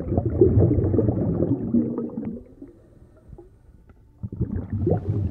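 Low rumbling, crackling noise in two stretches: one about two seconds long at the start, and a shorter one near the end.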